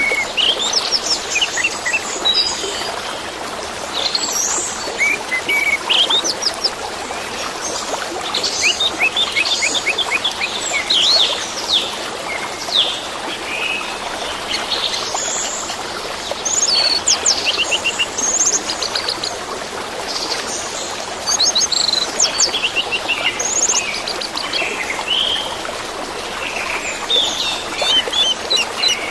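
Orange-headed thrush (anis merah) singing a long run of varied phrases with quick trills, in bouts with short gaps, over the steady rush of running water.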